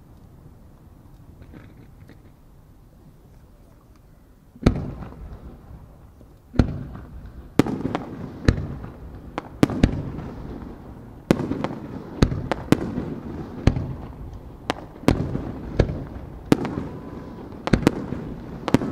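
Japanese aerial firework shells going off. After a few seconds of low lingering rumble, a quick run of sharp bangs starts about a quarter of the way in, roughly one a second, each trailing off into an echoing rumble.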